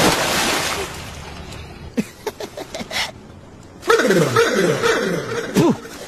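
A loud splash and rush of churning water that fades over about a second. Then a few sharp clicks, and near the end a person's voice calling out several times, falling in pitch.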